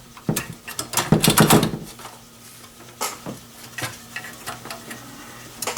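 Clicks and knocks of computer hardware being handled, busiest in the first two seconds and ending with one sharp click, over a steady low hum.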